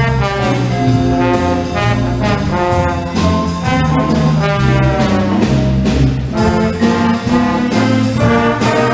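School band playing live: brass-led ensemble music with trombones and trumpets sustaining chords over a steady bass line, with percussion hits.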